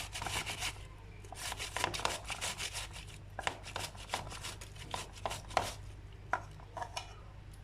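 Tomatoes being grated on a hand grater: quick repeated rasping strokes that thin out into a few separate scrapes over the last few seconds.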